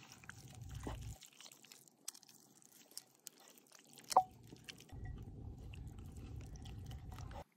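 Hands rubbing a coarse ground spice mix into raw chicken legs in a bowl: soft wet squishing with small crackles of the spices, and one sharp click a little after four seconds in. The sound stops abruptly near the end.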